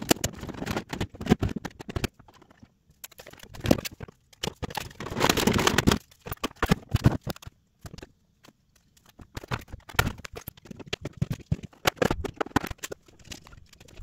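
Plastic fridge parts being handled and fitted back into a freezer compartment: irregular knocks and clicks, with a longer scrape about five seconds in.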